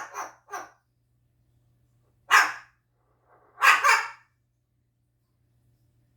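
Umbrella cockatoo imitating a dog's bark: short, harsh barks, singly and in pairs, with pauses of a second or more between them.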